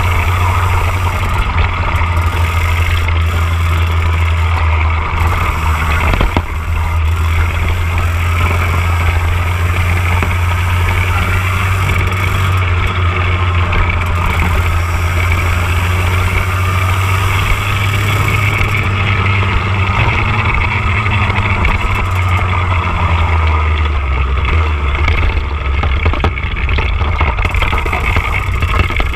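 Birel racing kart's TM K10B two-stroke engine heard from on board, running loud and steady at speed around the circuit with rushing noise over it. Near the end the engine note drops and becomes uneven as the kart slows.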